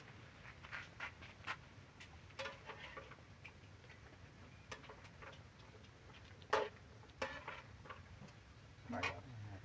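Puppies suckling at their mother dog's teats: faint, irregular clicks and smacks, with a few louder ones in the second half.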